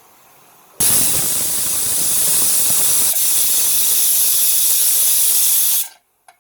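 Pressure cooker whistling: a loud, steady hiss of steam escaping past the weight, starting about a second in and cutting off suddenly about five seconds later. It is the cooker's second whistle, the signal that the curry's pressure-cooking is done.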